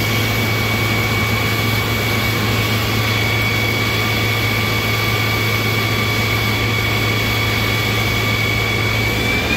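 Fire engine's engine and fire pump running steadily under load, pumping a 2.25-inch hose line at about 90 psi, with a steady low hum and a thin high whine over it.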